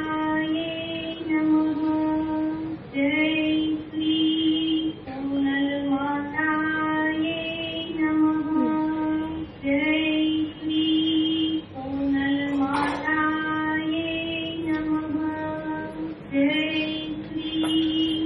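A high female voice singing a devotional aarti hymn in short, repeated phrases of held notes, with no instruments evident.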